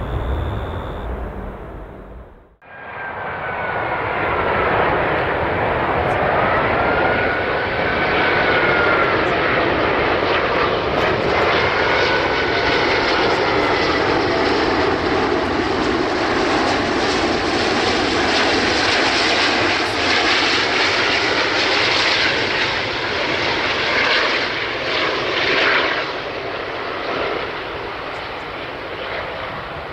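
An Airbus A330's approach noise cuts off abruptly about two and a half seconds in. It gives way to a Qantas Airbus A380's four Rolls-Royce Trent 900 jet engines on final approach: a loud, steady jet noise with whining tones that waver up and down in pitch. The noise eases a little near the end.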